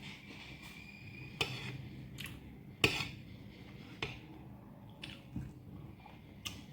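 A few scattered light clicks and taps of a fork or spoon on a dish, with soft handling noises in between. The sharpest click comes about three seconds in.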